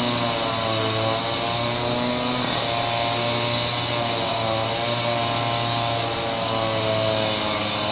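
Concrete saw running steadily while cutting through a stone floor, its motor pitch wavering up and down under load over a constant high grinding hiss of the blade in stone.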